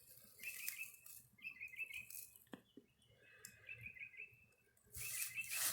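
A small songbird singing short, quick chirping phrases, repeated about once a second. There is a brief hiss near the end.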